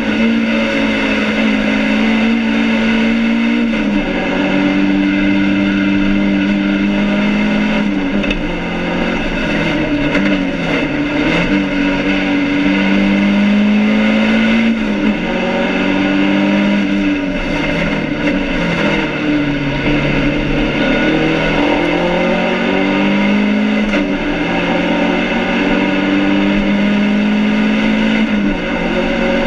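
BMW 2002 race car's four-cylinder engine heard from inside the stripped cabin under racing load, its note repeatedly climbing under acceleration and dropping at gear changes and lifts. The engine is being short-shifted to manage overheating.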